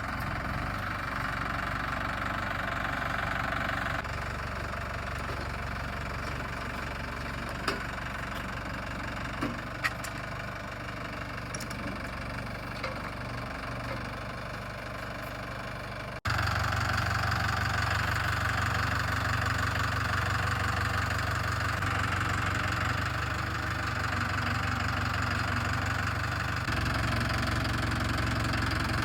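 Tractor engine running steadily, with a few light knocks in the first half. About 16 seconds in there is an abrupt cut, after which the engine is louder.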